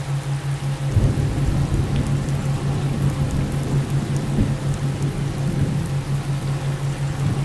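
Layered subliminal-audio track: a low hum throbbing evenly about four to five times a second, a theta-wave pulse, under a faint steady tone near 528 Hz. About a second in, a dense rushing noise like rain with rumbling thunder joins and masks the hidden affirmations.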